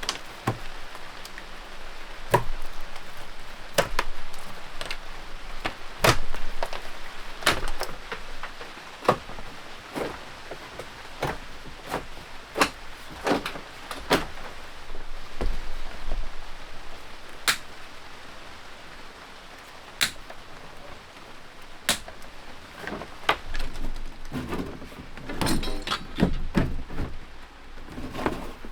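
Irregular knocks, clunks and clatter of hand work inside a wooden boat, as old wiring and electrical fittings are pulled out, over a steady hiss. The knocks come every second or so, and a busier run of clattering follows near the end.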